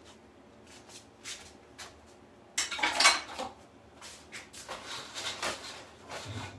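Kitchen clatter of dishes and utensils being handled: a few light clicks, then a louder clatter about two and a half seconds in, followed by a run of smaller rattles and knocks.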